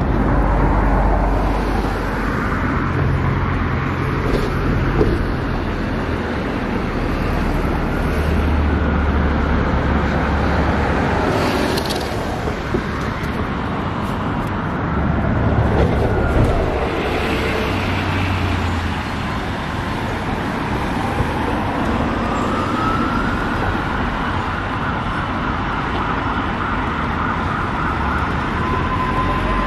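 Road traffic: cars and buses passing close by, with a steady wash of engine and tyre noise and low engine rumble swelling and fading as vehicles go past. A siren starts up in the last few seconds, its pitch rising.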